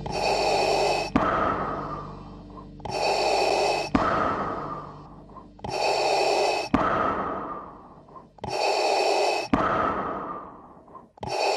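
Darth Vader's mechanical respirator breathing, the film sound effect of a breath drawn through a scuba regulator: slow, even breaths about every three seconds, each a loud hiss lasting about a second followed by a fainter, fading one.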